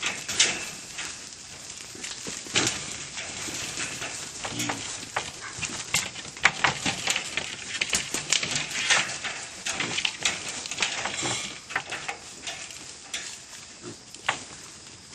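Wild boar piglets rooting and scrabbling in dry soil and leaf litter: an irregular run of crackling, scratching and clicking noises.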